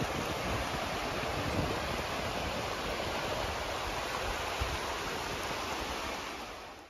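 Steady rushing of sea surf and wind, with no distinct breakers standing out, fading out near the end.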